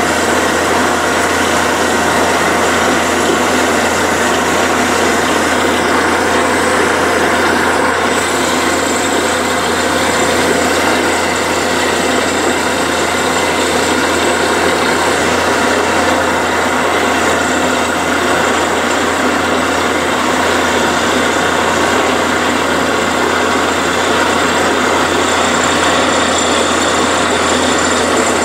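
Borewell drilling rig running while it drills into rock: a loud, steady mechanical din of engine and drill that holds even throughout.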